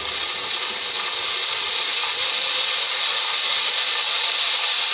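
Angle grinder with a chainsaw attachment running steadily with no load at its lowest speed setting, the chain spinning freely in the air, not yet oiled.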